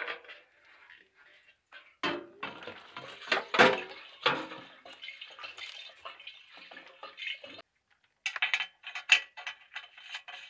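Diesel poured from a jerry can into a small metal tractor fuel tank, gurgling for about five seconds after a couple of knocks from the can. Near the end come sharp metallic clicks and rattles as the filler cap is handled.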